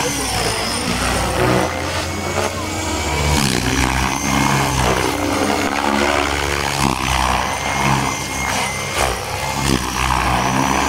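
Radio-controlled helicopter flying low aerobatics, its motor and rotor whine rising and falling in pitch as it swoops back and forth.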